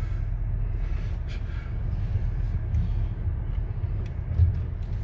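Range Rover Sport crawling along a rough, muddy off-road trail, heard from inside the cabin: a steady low rumble of engine and tyres, with a few faint rattles and a bump about four and a half seconds in.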